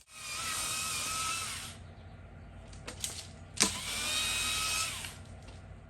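Chainsaw running at full speed in two bursts, about two seconds apart, falling back to a lower, quieter running between them. A sharp click comes just before the second burst.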